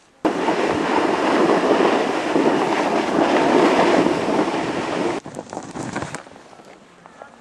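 Loud, steady rushing of a snowboard ride through powder snow. It starts abruptly and drops off about five seconds in to a fainter scraping noise with a few knocks.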